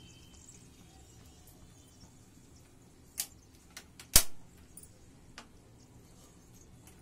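A bhatura deep-frying in a kadai with a faint sizzle of oil, broken by a few sharp metallic clicks from the steel slotted spatula against the pan. The loudest is a single knock about four seconds in, with smaller ticks just before and after it.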